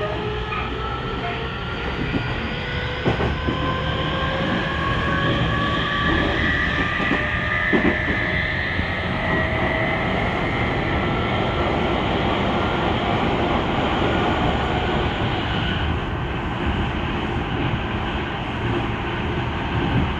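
Hitachi IGBT VVVF inverter and traction motors of a Tokyu 5000-series electric train, heard from inside the car while it accelerates: several whining tones rise steadily in pitch for the first half, then level off and fade under the rumble of wheels on rail, with a few rail-joint clicks. This car is known for loud, unusual motor noise.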